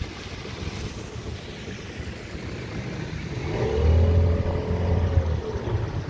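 Low rumble of wind and water, then about three and a half seconds in a boat motor revs up, holds for a couple of seconds, and eases back down near the end.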